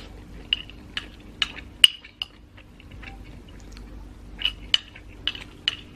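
An eating utensil clinking against a plate in a series of sharp clinks with a short ring, scooping up rice. There are two clusters of clinks, the loudest a little before the halfway point.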